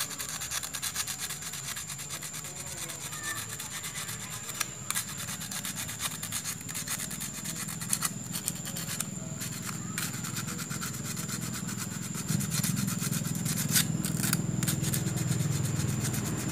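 Sandpaper rubbing in repeated short strokes on the end of a motorcycle disc-brake caliper's bleeder screw. The dirty tip is being cleaned so the screw seals, as it was leaking brake fluid. A low rumble joins near the end.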